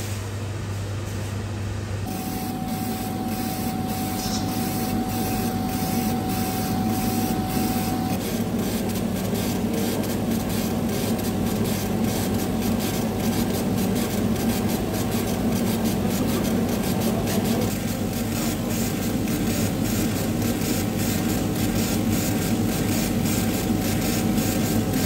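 A low hum for about two seconds, then a gantry laser engraver running: a steady hum and hiss with a rapid run of ticks from the head moving back and forth over the board, and a thin whine between about two and eight seconds in.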